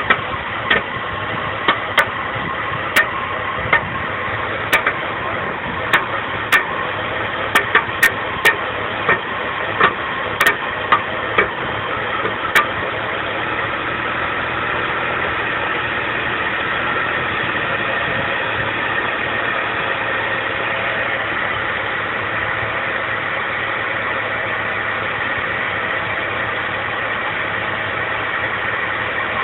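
BMW 325i E46 straight-six idling roughly, with sharp irregular pops, about eighteen in the first thirteen seconds, before the pops stop and it runs on steadily. The popping at idle is the rough-idle fault being shown.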